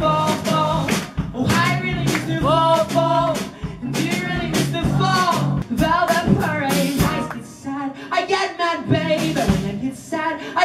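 A live rock band playing: a Stratocaster-style electric guitar, bass guitar and drum kit, with a sung vocal over them. The playing eases off briefly about nine seconds in, then comes back in full.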